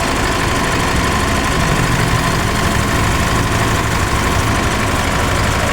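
Isuzu MU-X turbodiesel engine running at idle, steady and even, with a steady whine over the engine sound. The engine is being checked for a loud turbo noise whose cause has not yet been found.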